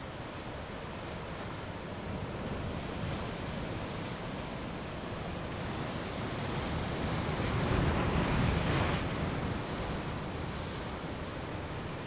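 Ocean waves washing against a rocky shoreline, a steady hiss of surf that swells and eases, with one wave breaking loudest about eight seconds in.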